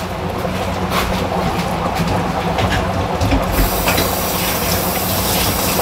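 Chicken sizzling in a steaming pot on high heat, with a few sharp clicks from a metal garlic press over the first few seconds. About halfway in, a louder steady hiss comes in and holds to the end.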